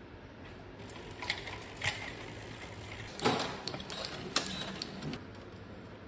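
Sharp clicks and a short metallic rattle from bicycle parts handled during assembly, loudest a little past halfway.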